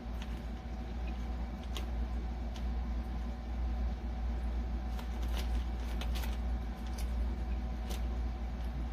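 Chewing a chocolate, caramel and peanut candy bar: a few faint, scattered crunching clicks over a steady low hum.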